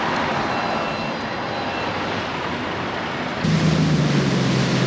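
A steady rushing noise. About three and a half seconds in it switches abruptly to a boat's outboard motor running underway, a steady low hum under the rush of wind and water.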